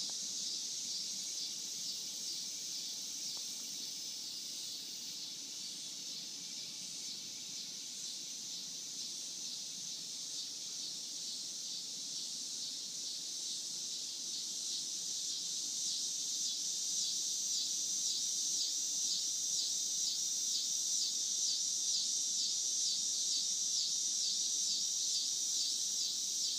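Late-summer chorus of insects: a steady high-pitched pulsing trill, growing louder from about halfway through.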